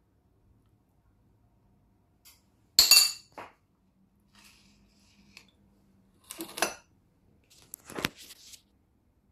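Metal spoon and fork clinking and knocking against a plate and bowl: a few separate sharp clinks, the loudest about three seconds in and more near six and a half and eight seconds, one of them ringing briefly.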